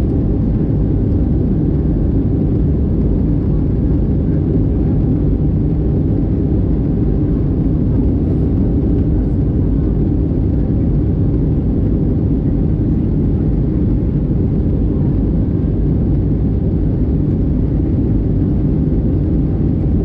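Steady cabin noise of an Airbus A320-214 in flight, heard from a window seat by the wing: an even, deep rumble of its CFM56 turbofan engines and airflow over the fuselage that does not change.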